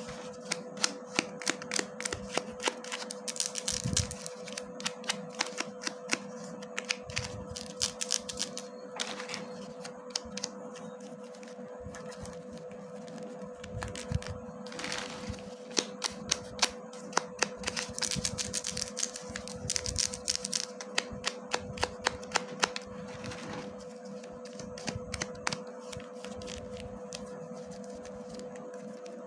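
Slime being squeezed and pressed by hand, giving quick, irregular crackling clicks and pops that come in thick clusters, over a faint steady hum.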